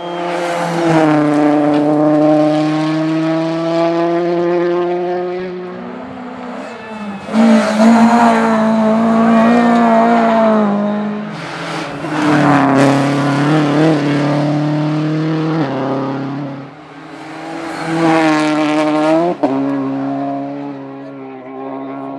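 Rally car engine running at high revs, its pitch stepping with gear changes, swelling and fading several times as the car drives the stage. There is one sharp crack near the end.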